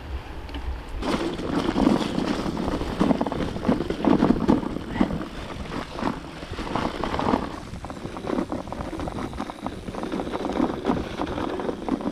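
Mountain bike rolling down a rough, stony track, its tyres crunching over rocks and the bike and its bags rattling, with wind buffeting the microphone; it starts about a second in.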